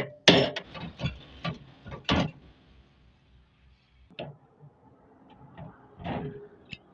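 Hammer blows and knocks on metal machine parts during a repair: a quick run of sharp strikes over the first two seconds, then scattered lighter knocks and clicks, with a heavier knock about six seconds in.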